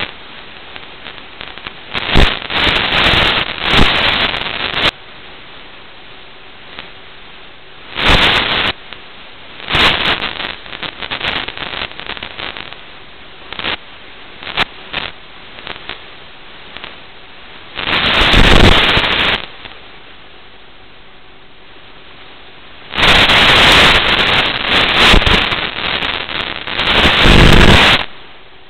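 Steady hiss from an analog FPV video link's audio channel, broken by loud bursts of crackling static, the longest near the middle and a longer run near the end.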